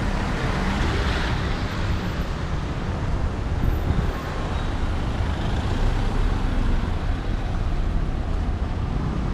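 City street traffic: vehicles passing with engine rumble and tyre noise, one passing closer about a second in.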